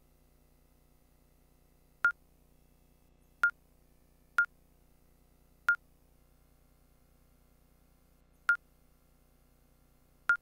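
Electronic dart machine beeping as its game menus are scrolled and options selected: six short beeps at one pitch, spaced unevenly about one to three seconds apart.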